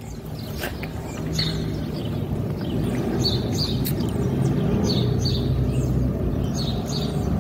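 A motor vehicle's engine hum growing gradually louder as it approaches, with small birds chirping now and then.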